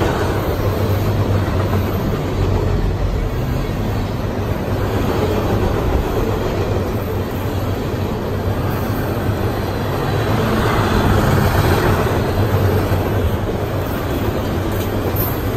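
CSX freight train's container flatcars rolling past: a loud, steady rumble of steel wheels on the rails.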